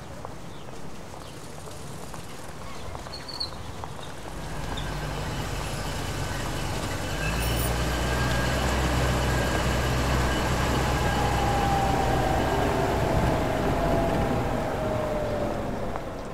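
A small car's engine grows louder from about four seconds in and passes by, its note falling as it goes away, over a general street hubbub.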